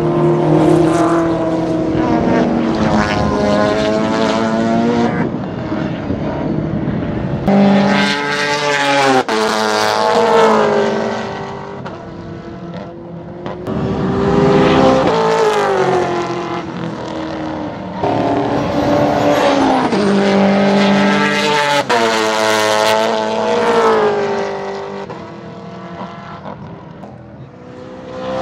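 Race car engines of a V8 Holden Commodore and a Mazda RX-7 running hard around a circuit. Their pitch climbs through the gears and drops back at each shift, over and over, and the sound swells and eases as the cars pass and move away.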